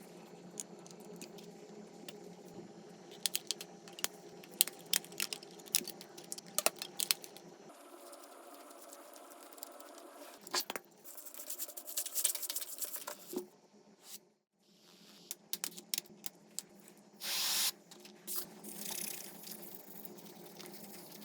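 Hands at work on an iPhone 12 Pro repair: scattered sharp clicks and taps of small tools and parts, then a few short rasping, tearing-like noises later on, over a steady low hum.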